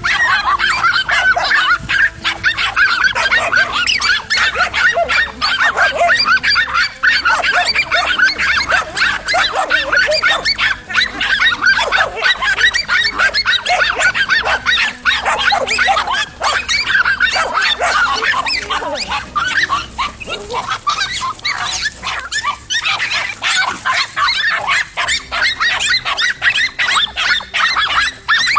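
A pack of dogs barking and yapping rapidly and without pause, several voices overlapping, as they hold a lizard at bay and attack it.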